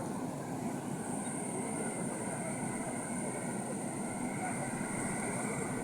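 Rainwater floodwater rushing past, a steady even rush with no breaks.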